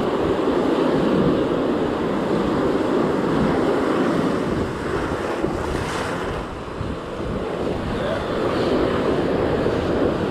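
Waves washing in and out around the legs, with wind buffeting the microphone: a steady rushing noise that eases briefly about halfway through.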